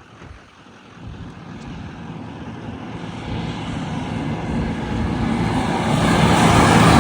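Tractor's diesel engine running and growing steadily louder as it comes closer, pulling a grain cart up to be loaded onto a trailer.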